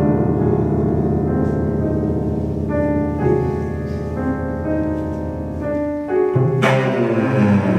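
Two cellos and a piano playing chamber music: sustained bowed notes over a low held tone, then about six seconds in a sudden loud accented attack followed by a quick falling run of notes.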